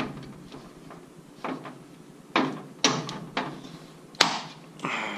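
A cordless work light being handled and unfolded in a metal tool chest drawer: about five sharp plastic clicks and knocks spread over a few seconds.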